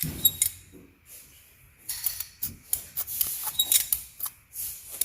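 Truck door handle mechanisms being worked by hand: a run of short, sharp little clicks and clacks, thickest from about two seconds in. Each handle's push-button mechanism clicks differently, which is why old and new are being compared.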